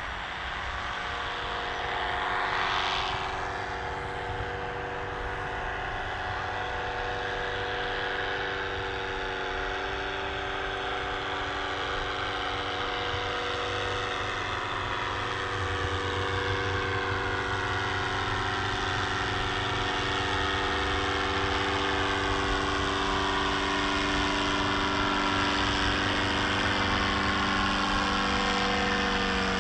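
Powered paraglider's engine and propeller droning overhead in flight, a steady pitched hum that grows slowly louder as it draws nearer. A brief louder whoosh passes about three seconds in.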